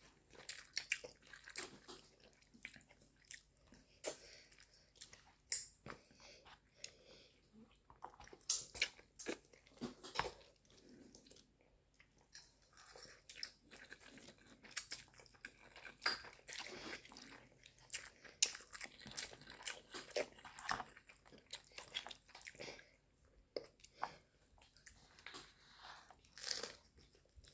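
Close-up eating sounds: a person biting and chewing spicy noodles and pan-fried dumplings, with irregular sharp crunchy clicks throughout.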